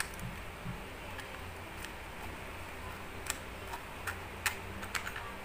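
A handful of sharp, irregular plastic clicks and taps as the small parts of a vlogging kit (phone holder and cabled microphone clip) are handled and fitted, over a low steady hum.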